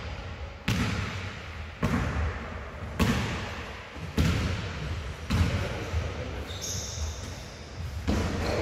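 Basketball bouncing on a sports-hall floor: about five sharp thuds, a little over a second apart, each ringing on in the hall. Near the end come a couple of brief, high-pitched squeaks.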